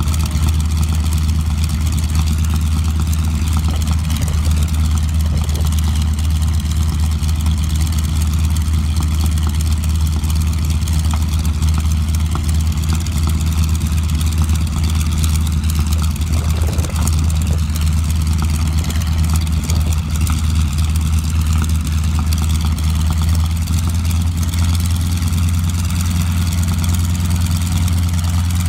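North American SNJ (Navy T-6 Texan) trainer's nine-cylinder Pratt & Whitney R-1340 radial engine idling with its propeller turning, a steady deep drone that holds even throughout.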